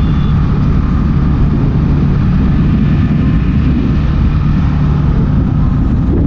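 Motorcycle riding at steady speed, engine running under loud wind buffeting on the microphone.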